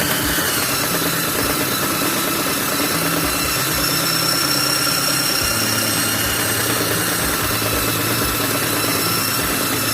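Modern M-2561 1200-watt electric belt sander running steadily at speed, its motor and belt giving a steady whine over a low hum.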